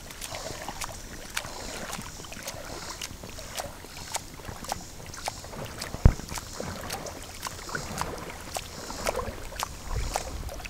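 River water splashing and sloshing in irregular strokes as feet kick and a hand paddles to steer an inflatable tube, with many small splashes and one sharp thump about six seconds in.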